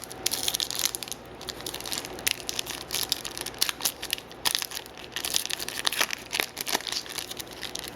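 Upper Deck SPX hockey card pack wrapper being torn open and crinkled by hand: a dense run of irregular crackles.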